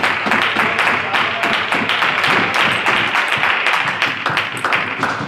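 Small crowd of spectators applauding: a dense run of hand claps that slowly tails off.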